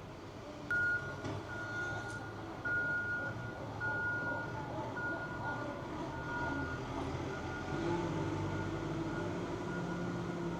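Vehicle reversing alarm beeping about once a second with a single high tone, over a low engine rumble; the beeps grow fainter in the second half.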